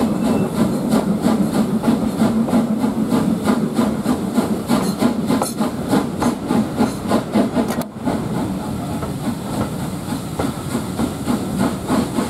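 LSWR S15 class No 506, a two-cylinder 4-6-0 steam locomotive, hauling its train: a steady, rapid run of exhaust beats with steam hiss, heard from an open carriage window.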